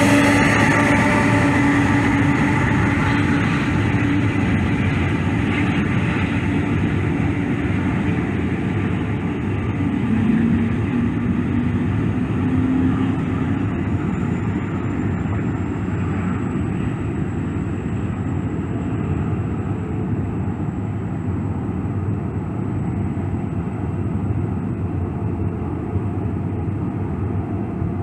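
Jet engines of a Boeing 747-400 freighter as it rolls down the runway after landing: a loud rumble with a whine that fades within the first several seconds, the whole sound dying away slowly as the aircraft moves off.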